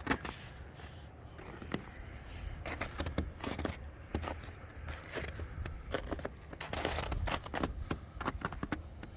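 Footsteps crunching in snow as a person walks, an irregular run of short crackly crunches that comes thicker after the first couple of seconds, over a low rumble of handling or wind on the microphone.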